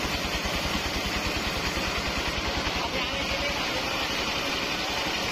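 Engine-driven portable bandsaw sawmill running steadily, its band blade cutting lengthwise through a waru (sea hibiscus) log. An even low pulsing from the engine sits under a steady hiss of the blade in the wood, and the pulsing weakens a little about three and a half seconds in.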